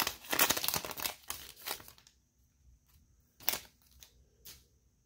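Foil wrapper of a Panini Mosaic baseball card pack crinkling as it is pulled open and off the cards, for about two seconds. Then two light taps, about a second apart.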